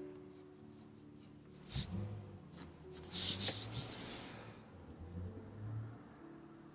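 Marker tip drawing on smooth paper: a few short scratchy strokes, the longest and loudest about three seconds in.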